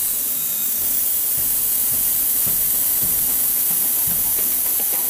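Steady hiss of compressed air rushing in through the tire valve, filling a homemade PVC air rifle's reserve tank.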